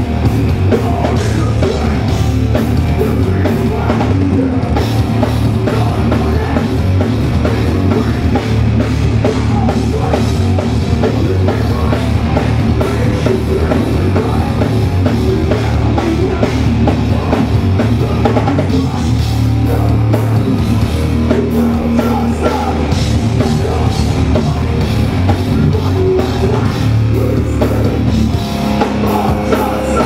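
Loud hardcore punk played live by a full band: drum kit and heavy guitars at full volume, dense and unbroken.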